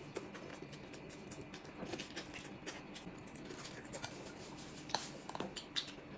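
Faint chewing and biting as a roast chicken leg is eaten, with scattered small wet clicks and mouth smacks.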